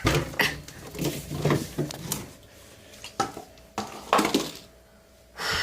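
Clinking and clattering of containers and dishes being moved about inside a refrigerator, in a series of irregular knocks and rattles.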